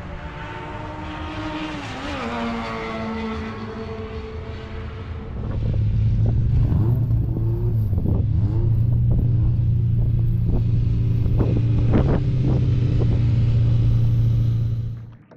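Historic one-litre Formula 3 racing cars running on the circuit, one engine note falling in pitch about two seconds in. From about five seconds a much louder single-seater engine close by, idling high with short blips of the throttle, cutting off just before the end.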